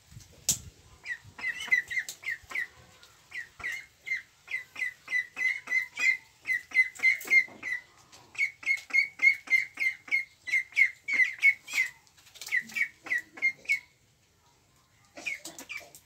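Young Pekin ducks peeping: a rapid string of short, high whistled calls, about three or four a second, with a brief pause about halfway and a longer break near the end before a few more. A single sharp click sounds about half a second in.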